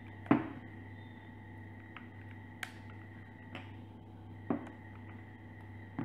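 Plastic back cover of a Blu Studio 7.0 phone snapping into its clips as it is pressed on around the edge: one sharp click about a third of a second in, then four fainter clicks spread through the rest.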